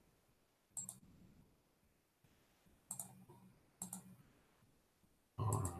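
Four sharp computer mouse clicks spaced out over a few seconds, the last one loudest, while browser tabs and a slideshow are being opened.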